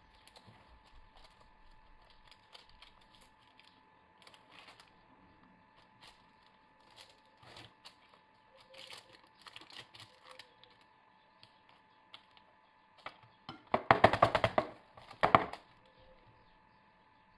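Silicone spatula spreading and smoothing chocolate sponge batter over parchment paper in a baking tray: faint, scattered scrapes and soft taps, with two louder scraping noises near the end.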